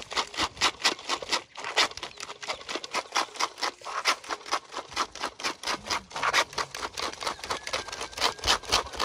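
Metal spoon rubbing passion fruit pulp and sugar against a cloth-lined strainer: a fast, even run of wet scraping strokes, pressing the juice out of the seeds.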